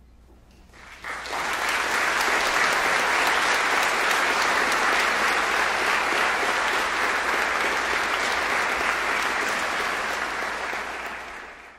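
Concert audience applauding, breaking out about a second in after a brief hush and fading out near the end.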